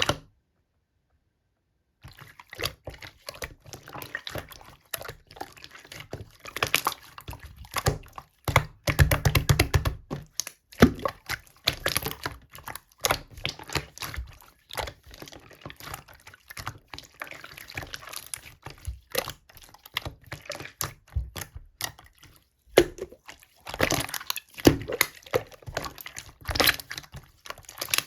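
Hands squishing and poking slime: a fast, irregular run of wet, sticky clicks, pops and squelches, starting after a brief silence at the start and thickest about nine seconds in.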